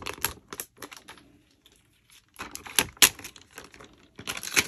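Phone packaging being handled as the phone comes out of its box: crinkling and rustling with sharp clicks, in three short spells with a quiet gap before the middle.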